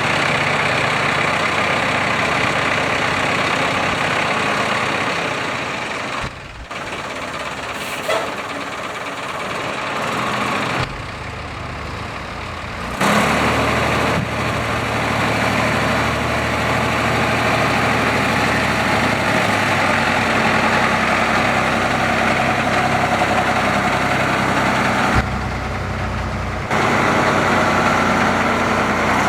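Caterpillar 3206 six-cylinder diesel of a concrete mixer truck idling steadily, its loudness dropping and coming back a few times.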